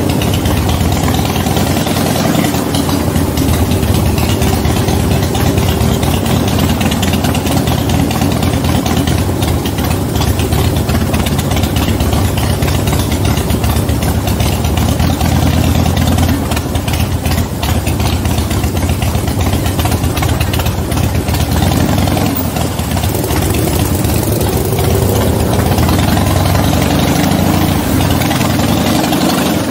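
V-twin motorcycle engine running steadily at low speed, heard from the bike itself, with only small changes in its note.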